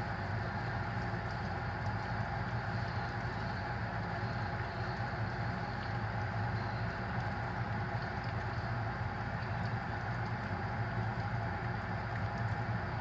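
Lobster pieces frying in hot oil: a steady sizzle with faint crackles, over a constant low hum.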